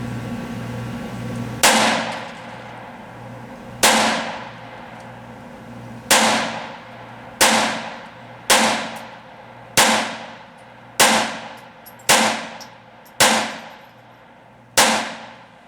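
Ten shots from a Taurus TX22 .22 LR pistol, fired one at a time about one to two seconds apart, each a sharp crack with a short ringing tail. The pistol cycles every round without a stoppage.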